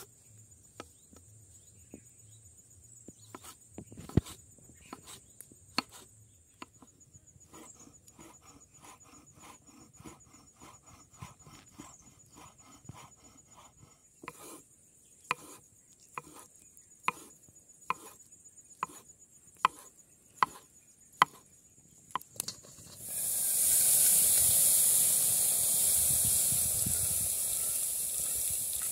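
Kitchen knife chopping green olives and then sausage on a wooden cutting board: sharp single knocks of the blade on the wood, about one a second, with quiet between. About 23 seconds in, a loud steady hiss takes over.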